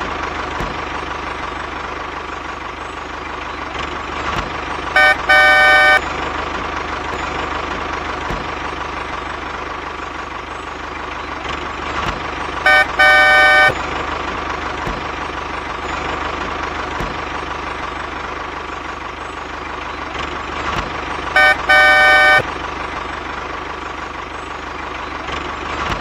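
A vehicle horn toots in short pairs, a brief toot then a longer one, three times about eight seconds apart, over a steady mechanical running sound with a faint held whine.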